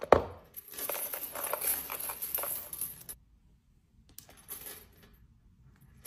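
Close-up handling noise of a phone and its case: a sharp knock at the start, then a couple of seconds of scraping, rustling and clinking that stops abruptly, a shorter burst of the same about a second later, and a small click near the end.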